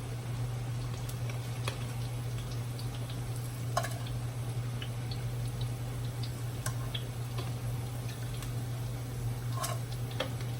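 Panko-coated shrimp and vegetables deep-frying in oil: scattered crackles and pops, a few louder ones, over a steady low hum.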